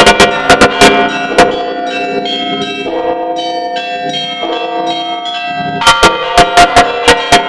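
Orthodox church bells ringing together: quick strikes of smaller bells over the sustained hum of larger ones, with bursts of rapid strikes at the start and again near the end.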